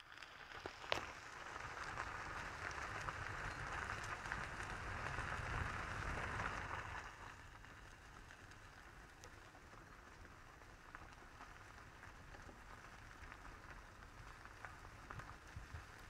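Vehicle tyres rolling slowly over a gravel dirt road: an even crackling hiss over a low rumble, louder for the first seven seconds and then easing off, with a sharp click about a second in.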